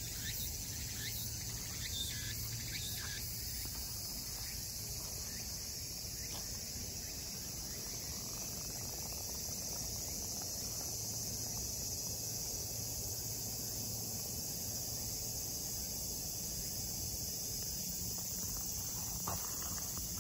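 Steady insect chorus in woodland, a continuous high-pitched hum, with a few faint clicks near the start and end.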